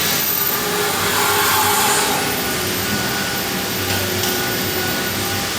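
CNC router running: a steady machine noise with a faint high whine held throughout.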